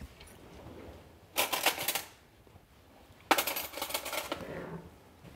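Two bursts of rapid clicking rattle, the first about half a second long and the second about a second long, a second and a half apart.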